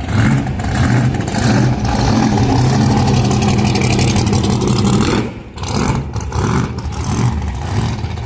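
Loud car engine running close by with a steady low drone, cutting out briefly about five seconds in and then coming back less evenly.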